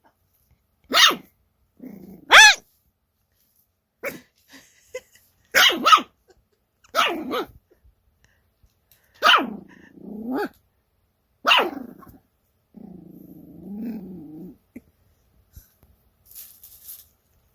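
Toy poodle puppy barking in short, high yaps, about nine of them spaced a second or two apart, with a longer low growl near the end.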